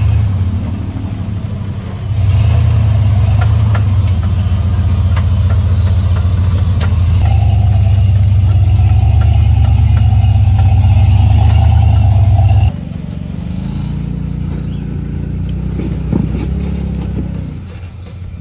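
Off-road Jeep engines running at low speed as the rigs crawl over rocks, with a deep steady engine note and a few knocks. The engine gets louder about two seconds in and drops off suddenly a little past the middle, with a quieter engine running after that.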